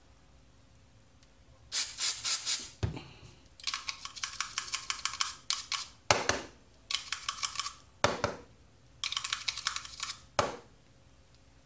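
A short spray of aerosol cleaner about two seconds in, then a toothbrush scrubbing corroded battery contacts in a plastic motion-sensor housing in several brief bouts of fast, scratchy strokes. Three sharper knocks come between the bouts.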